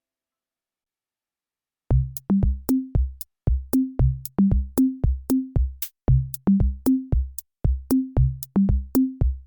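Dead silence, then about two seconds in an electronic background-music beat starts: drum-machine kick and bass notes with sharp hi-hat clicks in a steady rhythm.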